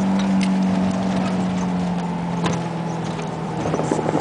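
1973 Volkswagen Bus's air-cooled flat-four engine pulling hard in first gear, heard from inside the cab, its note sagging slightly. The body rattles and knocks over rough dirt, with a flurry of knocks near the end.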